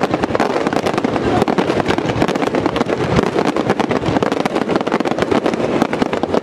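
Fireworks finale barrage, with aerial shells and ground fountains firing together. It makes a dense, unbroken crackle of rapid bangs and reports.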